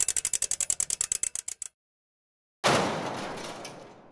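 Edited transition sound effects: a fast run of ticks that slows down and stops about one and a half seconds in. After a second of dead silence comes a sudden hit that fades out over about a second and a half.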